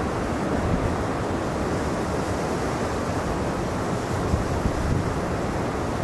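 Strong blizzard wind blowing and buffeting the microphone: a steady rushing noise with a rough, fluttering low rumble.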